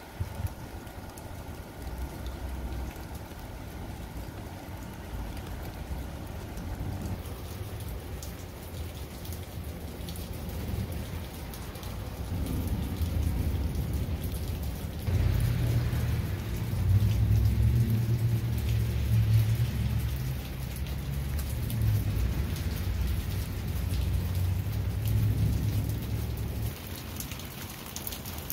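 Steady patter of falling water, with a low rumble that grows louder about halfway through and eases off near the end.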